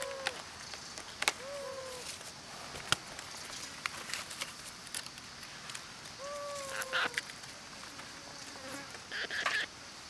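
Insects buzzing steadily, with a few short calls that rise and fall in pitch and several sharp clicks, the loudest about a second and three seconds in; a brief rustling near the end.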